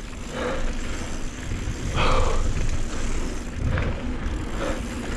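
A mountain biker's heavy, labored breathing, with puffs about once a second, close to a chin-mounted action camera's microphone. Underneath is a steady rumble of wind and tyres on the dirt trail during the descent. The uploader attributes how bad the breathing sounds to riding at high elevation for the first time.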